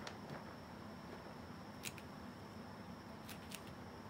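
Faint, scattered clicks and rustles of litter granules as cats paw and nose through a plastic litter tub, a few sharp ticks a second or more apart over a faint steady high whine.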